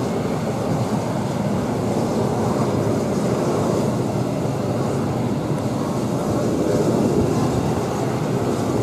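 German Panavia Tornado taxiing, its two RB199 turbofan engines running at a steady level with an even rushing jet noise.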